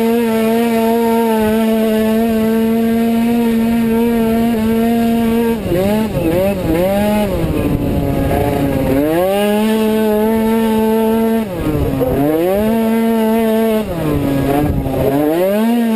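Two-stroke racing scooter engine at full throttle, its automatic transmission holding it at one steady high pitch. Three times the pitch drops and wavers, then climbs back to the same level: the throttle is eased for a corner and opened again.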